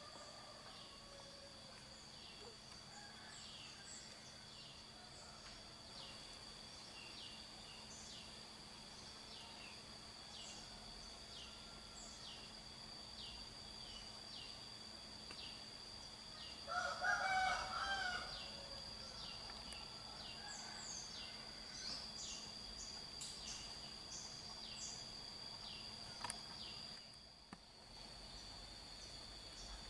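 Forest ambience: a steady high insect drone with short high chirps repeating over and over. A rooster crows once, about halfway through, lasting about two seconds.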